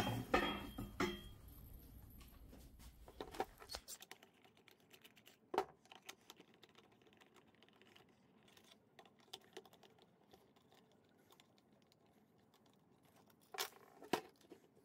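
Small clicks and knocks of hands working on a car air compressor's plastic and metal parts: a quick flurry of clicks at the start, scattered single clicks, and another short cluster near the end. A faint low hum underneath stops about four seconds in.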